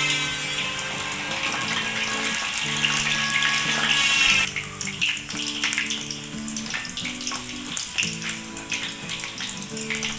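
Spring rolls deep-frying in hot oil: a steady sizzle full of crackles and pops, which thins to scattered crackles about halfway through. Background music plays under it.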